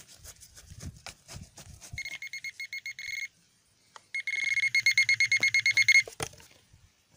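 Handheld metal-detecting pinpointer probing loose soil and beeping in rapid pulses: a short run of beeps, then after a brief pause a longer, much louder run, signalling a buried coin. Scratchy crunching of the soil comes before the first beeps.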